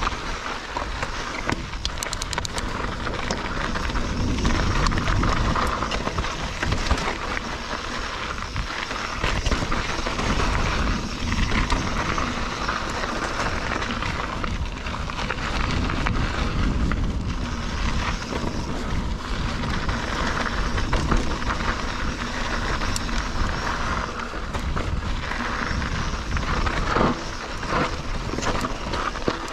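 Mountain bike rolling fast over a rough dirt trail: a steady rumble of tyres on dirt with frequent clicks and knocks as the bike rattles over bumps, picked up by a camera mounted on the handlebars.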